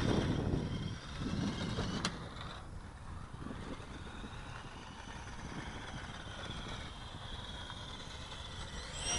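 Radio-controlled model motors, the Super Cub plane's and the RC truck's, giving a faint steady whine. Low rumbling gusts sound near the start and again about a second and a half in, and a single sharp click comes about two seconds in.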